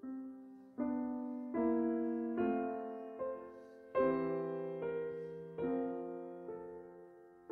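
Slow, gentle solo piano music: chords struck every second or so, each left to ring and fade.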